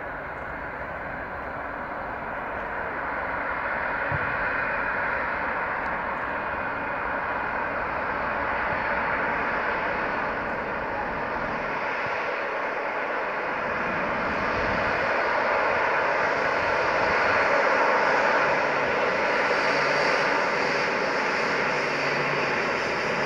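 Jet engines of an Emirates Airbus A380-800 at taxi power: a steady rushing jet noise that grows louder as the airliner taxis closer, with a higher whine coming in near the end.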